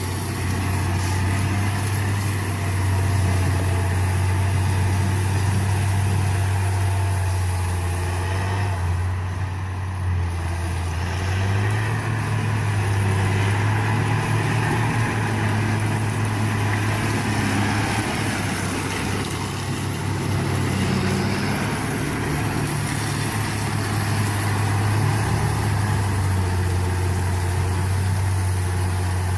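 Engine of a brush- and algae-clearing machine running steadily with a low drone. Its pitch shifts slightly about a third of the way in and again near the end.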